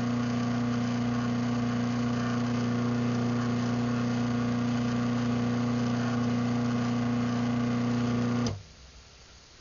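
Craftsman half-horsepower garage door opener running a cycle after a keypad command: a steady motor hum that cuts off abruptly with a click about eight and a half seconds in as the opener reaches its travel limit.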